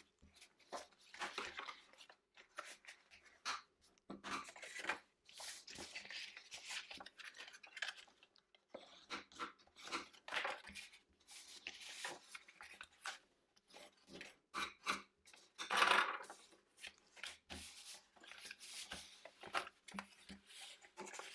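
Heavy cardstock being folded and creased by hand: irregular rustling, crinkling and scraping of stiff paper, with a bone folder drawn along a fold line near the start.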